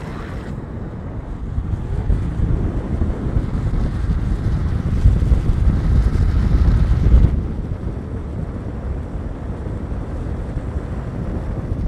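Heavy wind buffeting on the microphone at downhill speed. It grows louder toward the middle and drops suddenly about seven seconds in.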